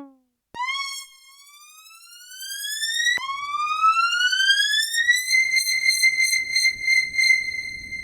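Arturia MicroFreak synthesizer preset: a bright, siren-like lead tone that glides slowly upward in pitch, drops back and glides up a second time, then holds one pitch with a rapid pulsing flutter before cutting off.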